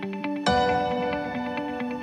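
Ambient background music: quick picked notes, then a full held chord struck about half a second in.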